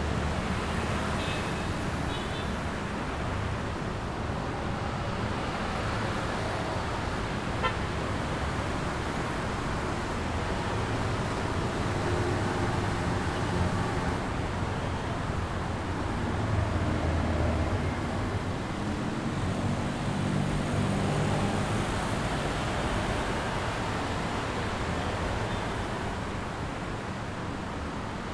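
Busy city street traffic: cars and motorbikes passing in a continuous engine and tyre noise that swells and fades as vehicles go by, with horns tooting briefly now and then.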